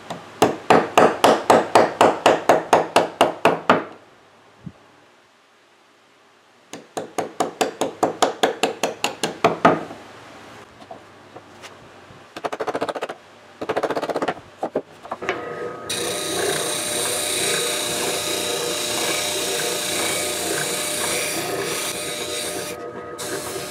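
A wood chisel paring the corner of a board in two quick runs of scraping strokes, about five a second. About two-thirds through, an oscillating spindle sander takes over, running with a steady hum under the loud hiss of the board being sanded against its drum.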